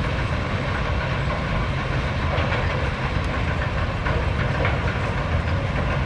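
Steady low rumble of sawmill machinery and a Liebherr 944 log handler's diesel engine, with a few light knocks and clatter in the middle.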